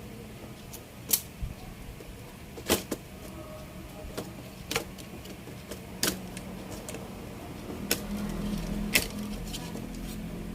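Scattered sharp clicks and knocks of a TV power-supply board and tools being handled on a workbench, about one every second or so, over a low hum that gets louder in the last few seconds.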